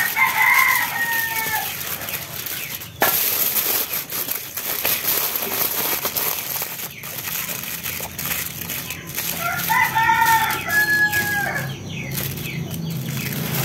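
A rooster crows twice: a short crow just after the start and a longer one about nine seconds in. A steady rustling hiss runs underneath, with one sharp knock about three seconds in.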